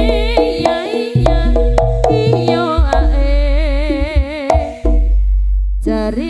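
Javanese jaranan ensemble music: sharp hand-drum strokes over a heavy bass, with a melody that wavers in a wide vibrato. The music breaks off briefly near the end before starting again.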